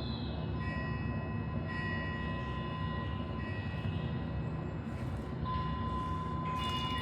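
Meditation ambience: a steady low rumbling white noise with chime tones ringing over it, fading in and out. A fresh chime strike rings out about six and a half seconds in.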